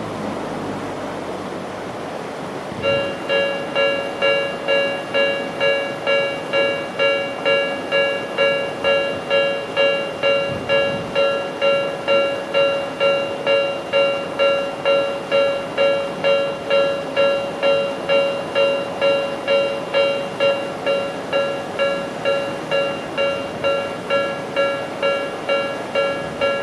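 Japanese railway level-crossing warning bell, an electronic Tobu-type "B" tone, starts about three seconds in after a steady hiss. It then rings in regular strikes about twice a second, each a bright bell-like ding, signalling that a train is approaching and the crossing is closing.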